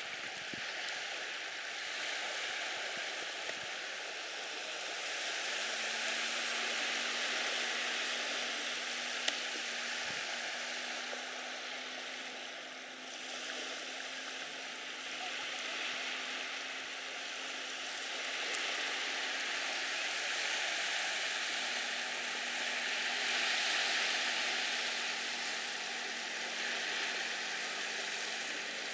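Small lake waves washing on a shore: a steady hiss that swells and eases every several seconds. A faint, steady low hum comes in about six seconds in.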